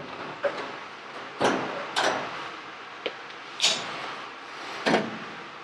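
Half a dozen brief, separate knocks and clicks as a cordless driver and small parts are handled against a dryer's sheet-metal cabinet; the driver's motor is not running.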